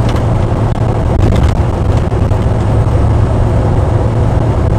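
Steady low drone of a semi truck's diesel engine and road noise, heard from inside the cab while driving.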